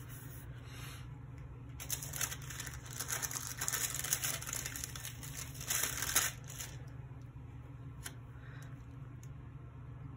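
Paper rustling and crinkling as sticker sheets and their backing paper are handled over a planner page, strongest from about two seconds in until past the middle, then a couple of light taps. A steady low hum runs underneath.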